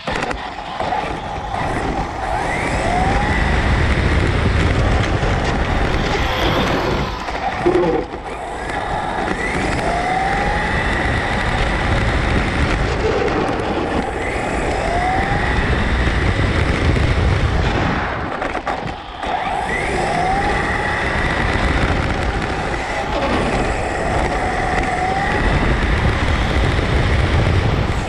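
Traxxas Slash RC short-course truck heard from a camera mounted on it while driving on asphalt. A steady rush of tyre and wind noise runs under an electric motor whine that rises in pitch each time the truck accelerates, several times over. The sound dips briefly about 8 s in and again around 18 s when the truck backs off the throttle.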